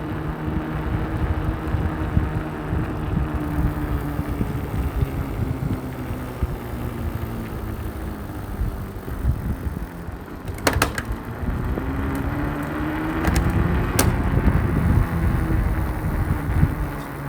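Electric skateboard rolling over pavement with a rough wheel rumble and a motor whine that drops in pitch as it slows, then rises again about twelve seconds in as it speeds up. A few sharp clicks come near the end.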